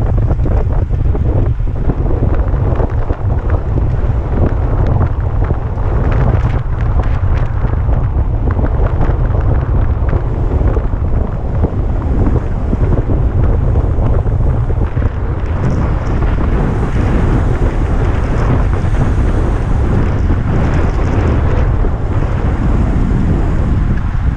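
Wind buffeting the microphone of a road bike racing at speed: a loud, steady low rumble with a rushing hiss above it.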